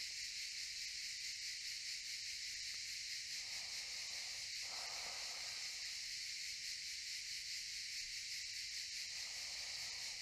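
Cicadas calling in a steady, high-pitched chorus with a fast, even buzz.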